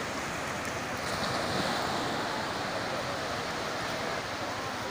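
Low surf washing steadily onto a flat sandy beach, with wind rumbling on the microphone.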